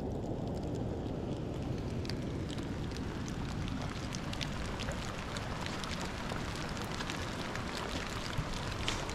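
Rain falling on the hillside, with scattered drops ticking close by, more of them toward the end, over a steady low rumble.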